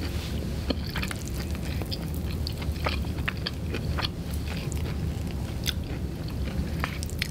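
Close-miked chewing of noodles, with small wet clicks and smacks scattered through, over a low steady hum.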